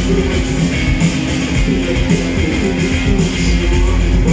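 Live band playing amplified rock music, led by an electric guitar.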